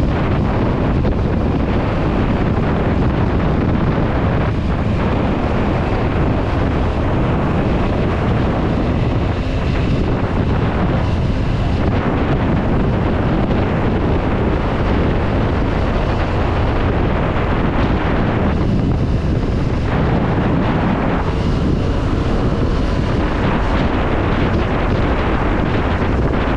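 Steady, loud wind noise buffeting the microphone of a camera on a motorcycle cruising at road speed, with the bike's running noise mixed in underneath.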